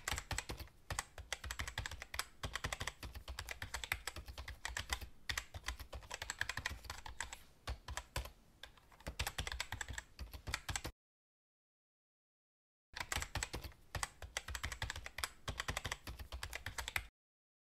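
Rapid computer keyboard typing as a sound effect, a dense run of key clicks. It breaks off for about two seconds some two-thirds of the way in, then resumes and cuts off just before the end.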